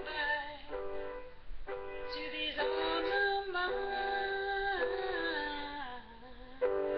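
Music: a woman singing a slow melody with held, wavering notes over a steady chordal backing, in a thin, low-fidelity recording. Near the end the sound drops briefly, then a new chord comes in sharply.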